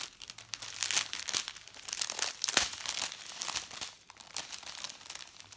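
Plastic packaging from a diamond painting kit crinkling and rustling as it is handled, in irregular crackles.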